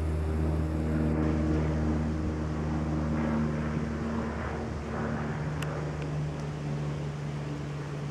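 Propeller plane flying low overhead: a steady, deep engine and propeller drone that slowly fades as it moves away.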